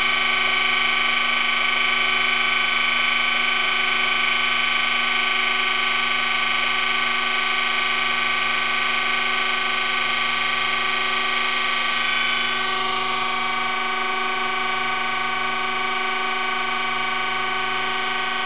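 Surface grinder wheel grinding the outside of a hardened steel drill bushing spun on a tapered mandrel by an electric centers drive: a steady whine over a grinding hiss. The hiss eases a little after twelve seconds in as the cut sparks out.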